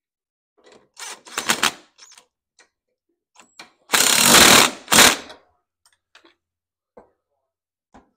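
DeWalt cordless impact driver running nuts onto a riding mower's drag link: short rattling bursts about a second in, then a louder hammering burst of about a second near the middle with a brief one after it, as the nut tightens. A few light clicks follow.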